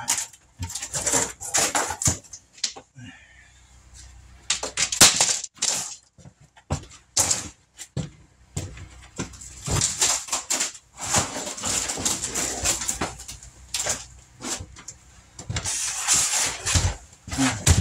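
Thin wood wall paneling being pried and pulled off the wall: scattered knocks, cracks and scraping, with one loud bang about five seconds in and busier stretches of cracking and scraping later on.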